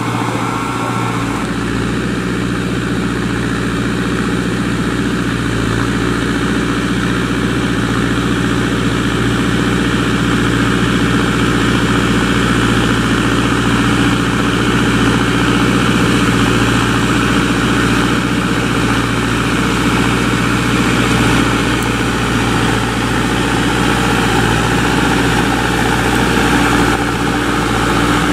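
Same Explorer 90 tractor's diesel engine running steadily under load while it pulls a five-shank Alpego KD 5 subsoiler through the ground. The tone shifts slightly about a second in and again near the end.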